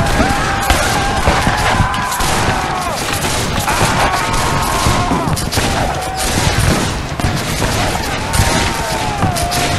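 Black-powder rifle-muskets firing in a continuous ragged crackle of many overlapping shots, with men's drawn-out yells over the gunfire.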